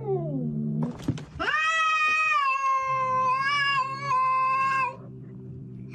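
Domestic cat meowing: a short cry falling in pitch, then one long, drawn-out meow lasting about three and a half seconds, with a low steady hum underneath.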